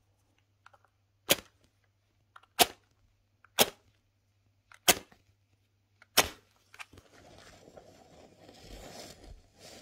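A coloured-head match struck against the matchbox's striking strip five times, about a second apart, each a short sharp scrape. It catches on the last strike and burns with a faint, steady hiss.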